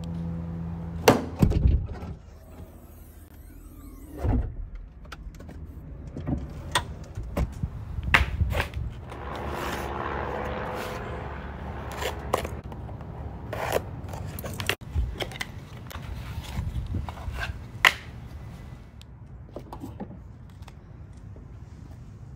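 Handling noises: a string of sharp plastic clicks and knocks from hands working a car's fuel filler door, with a stretch of rustling in the middle as a taped cardboard parts box is opened.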